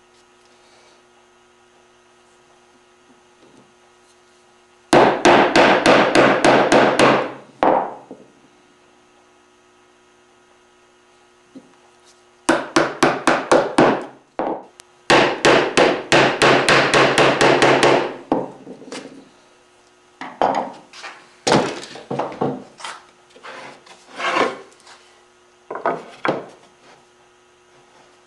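Chisel driven by a mallet into curly maple to chop out dovetail waste: three runs of quick, even taps, about five a second, with pauses between. In the last third come slower, irregular scraping and lighter knocks as the chisel works the cut.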